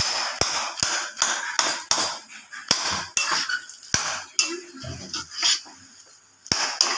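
Metal kitchen utensils and dishes clattering: an irregular run of knocks and clinks against pots and plates.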